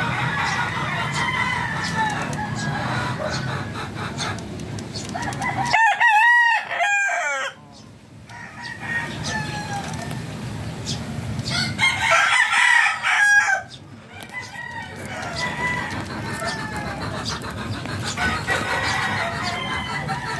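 Rooster crowing twice, about six and twelve seconds in, each crow a couple of seconds long. Fowl clucking fills the gaps between the crows.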